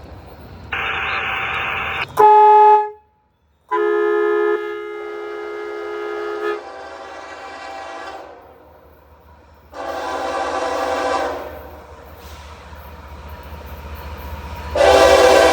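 Freight locomotive air horn sounding a series of separate blasts of different lengths, the loudest starting near the end. The sound drops out completely for under a second about three seconds in.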